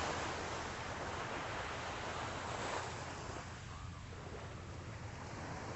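Calm Atlantic surf washing on the beach, a steady wash that swells slightly near the start and again about three seconds in, with a light breeze on the microphone.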